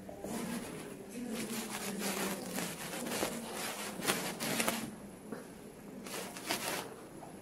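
Rustling and scuffing handling noise close to the microphone as a hand-held camera is carried and moved, in two irregular stretches: a long one starting just after the beginning and a shorter one near six seconds.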